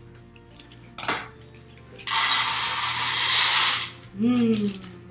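A sharp snip about a second in as scissors cut open a plastic bag of dried pinto beans, then about two seconds of dry beans pouring and rattling into an enamelled pot, stopping abruptly.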